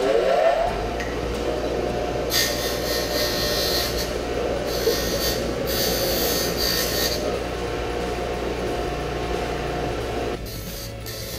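Bench grinder spinning up with a rising whine, then running steadily while the jagged sawn ends of PVC pipe are pressed against the wheel. This gives two rasping grinding passes of a second or two each, smoothing the cut ends. The motor's whine drops away near the end.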